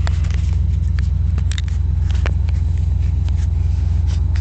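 A 1986 Cadillac Fleetwood Brougham's V8 engine running steadily, heard from inside the cabin as a low, even rumble, with a few light clicks and knocks over it.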